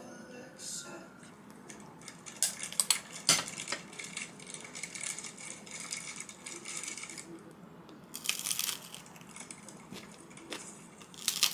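Crisp crust of a bread roll crackling and crunching as it is broken and bitten. A dense run of sharp crackles starts a couple of seconds in, with louder bursts about two-thirds through and near the end.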